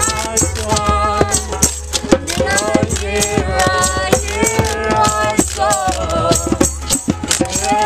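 Acoustic jam with ukuleles strummed, hand drums struck by hand and a washboard scraped in a rattling rhythm, with voices singing along.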